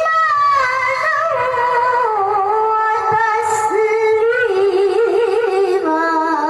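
A child qari chanting Quran recitation in a high voice, holding one long unbroken melismatic phrase with wavering, ornamented notes that slowly drift down in pitch, then stops abruptly.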